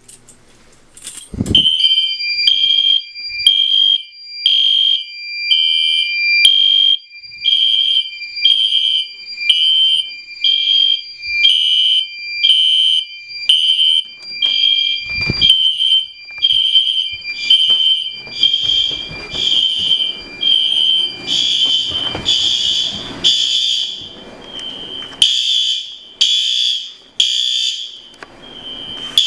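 A fire alarm pull station clicks as it is pulled, and right away several fire alarm horns start pulsing in the code 3 temporal pattern. Each horn codes itself, so their pulses overlap into a rapid, steady beat. About 15 seconds in there is a thump, and from about 18 seconds the horns get louder and fuller.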